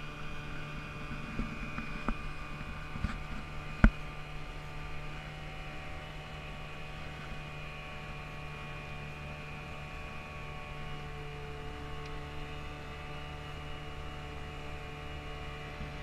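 Boat engine running steadily, a droning hum. A few sharp clicks or knocks come in the first four seconds, the loudest just before 4 seconds in.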